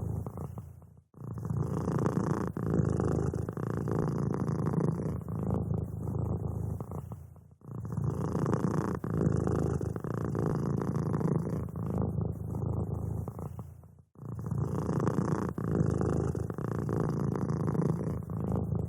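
A domestic cat purring steadily in a low, rough, continuous rumble. The purr fades nearly to silence and swells back about every six and a half seconds, at roughly 1, 7.5 and 14 seconds in.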